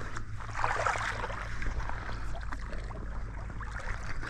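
Shallow water sloshing and splashing as a hooked speckled trout is drawn in at a wader's feet and scooped into a landing net, loudest about a second in. A low steady rumble runs underneath.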